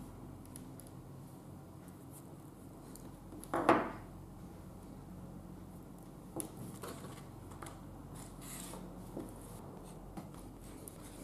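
Handling noises of small parts on a wooden table: light clicks, taps and rubs as a cylindrical battery and thin wires are handled. One louder knock about three and a half seconds in, something being set down on the tabletop.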